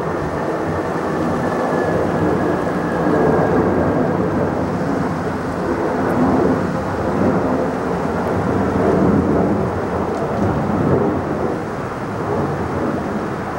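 Jet engine noise from a twin-engine Boeing 757 climbing out overhead after takeoff: a loud, steady, low rumble that swells and eases slightly. A faint high whine fades out about four seconds in.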